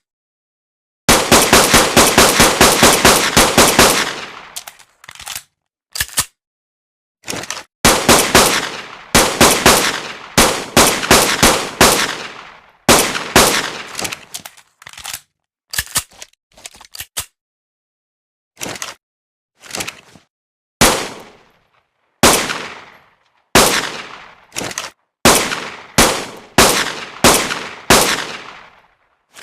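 Fabricated pistol gunshot sound effects: a fast automatic burst of about five shots a second lasting some three seconds, then several shorter volleys of quick shots, and spaced shots each with a fading ring in the second half.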